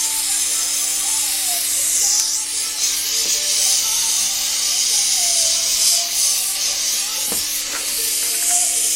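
Gas torch flame hissing steadily as it heats metal, over a low steady hum, with a couple of faint clicks near the end.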